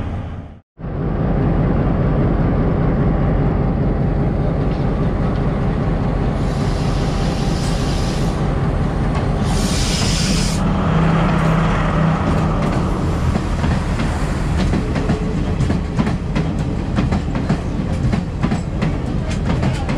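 Sri Lanka Railways Class S12 diesel multiple unit running past at close range beside a Class M6 diesel locomotive: a loud steady diesel rumble, two hisses of air at about seven and ten seconds in, then wheels clicking over rail joints as the carriages go by.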